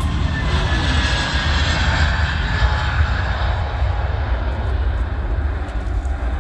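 Jet noise from a Transavia Airbus A321neo's engines as the airliner passes. The noise swells to its peak about two to three seconds in, with a faint whine over it, then eases slightly.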